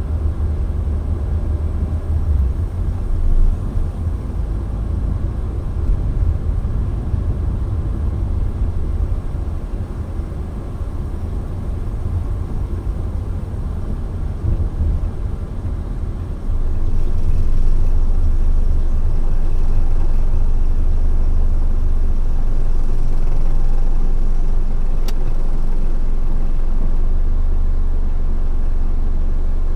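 Road and engine noise of a moving car: a steady low rumble that steps up and stays louder a little past halfway, with a single faint click near the end.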